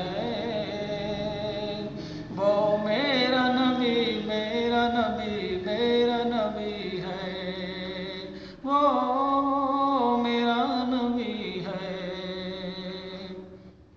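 A solo voice singing a naat in long, drawn-out melodic phrases with gliding ornaments and no clear words. A new phrase begins about two and a half seconds in and another about nine seconds in, and the last one fades away near the end.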